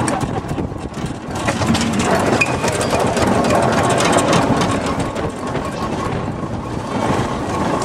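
Steam traction engine on the move on the road: a steady, unbroken mix of mechanical clatter and rumble from the engine and its wheels.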